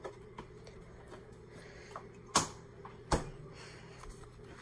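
Two sharp knocks, about two and a half and three seconds in, over a steady low hum.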